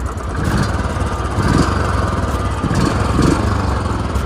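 Royal Enfield Bullet 350 BS6's single-cylinder engine running through its stock exhaust, idling with about four short throttle blips.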